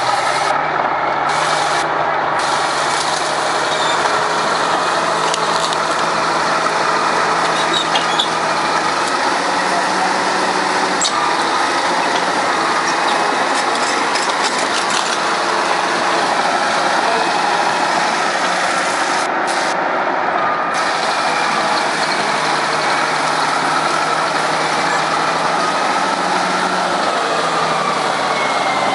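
Heavy road-construction machinery running steadily: a constant engine drone with higher squeaking tones over it, some sliding in pitch.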